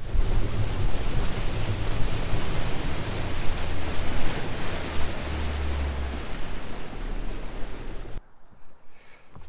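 Heavy wind rush buffeting the microphone together with water rushing past the hull of a bass boat running at speed, with a deep rumble underneath. The rush drops away sharply about eight seconds in.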